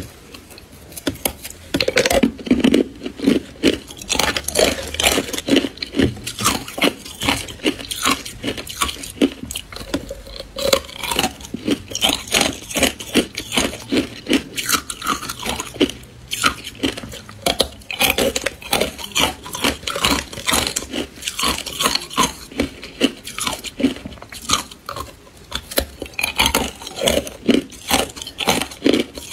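Frozen matcha ice being bitten and chewed, the hard ice cracking and crunching between the teeth in a dense, irregular run of sharp crunches.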